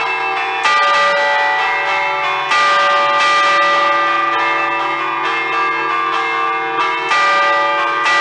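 Peal of five Ambrosian church bells in D, cast by Giorgio Pruneri in 1875, chimed by hand as festive allegrezze a cordette: clappers pulled on cords strike the hanging bells in quick repeated patterns, with the long ringing of each stroke overlapping the next. Heard up close beside one bell, with heavier strokes landing about two-thirds of a second in, about two and a half seconds in, and about seven seconds in.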